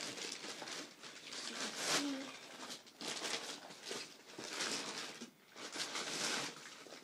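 Plastic shipping bag rustling and crinkling as a shoebox is pulled out of it, in uneven bursts with short pauses about three and five seconds in.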